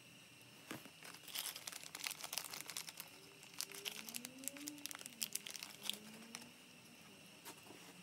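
Thin plastic, such as a small parts bag, crinkling and crackling as it is handled, with many quick irregular crackles from about a second in until the last couple of seconds.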